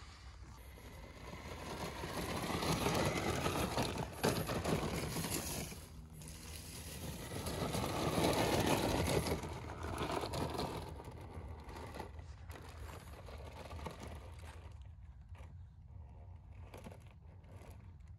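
Small RC crawler trucks' electric motors and gearboxes whirring as they crawl over rough trail ground, with tyre and chassis scraping; the noise swells louder twice, about two seconds in and again around eight seconds, then drops back.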